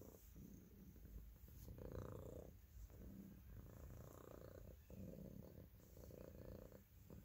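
Grey long-haired domestic cat purring close up, in stretches of about a second with short breaks between them.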